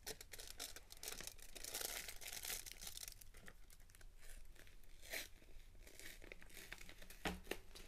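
Paper wrapper of a chocolate block being torn open and crinkled by hand: faint rustling with small tears and crackles, busiest about two seconds in, with a short sharper crackle about five seconds in.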